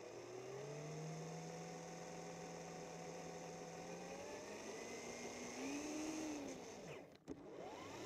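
Remote-control truck's motor and drivetrain whining, heard from on board the truck. The whine rises in pitch as it speeds up, holds steady, and climbs again. About seven seconds in it drops sharply, then rises once more near the end.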